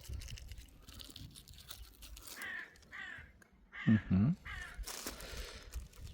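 Packaging rustling and crinkling as the contents of a welder box are handled, with two short vocal calls about four seconds in.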